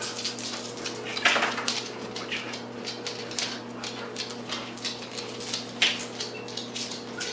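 Pet dog panting with its mouth open, with irregular light clicks and metal jingles from claws on a laminate floor and the collar tag, a few of them louder. A steady low hum runs underneath.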